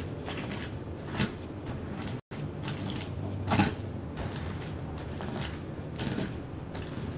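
Stone pestle crushing fried chicken into sambal in a wooden mortar: scraping and grinding with a few sharper knocks of stone on wood, about a second in, midway (the loudest) and near the end.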